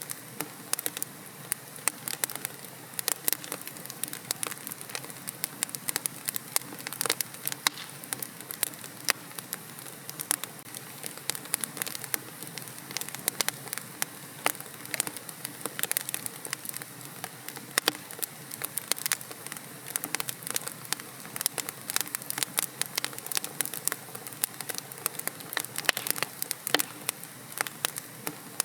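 Wood fire burning in a fireplace: a steady soft hiss of flames with frequent sharp, irregular crackles and pops.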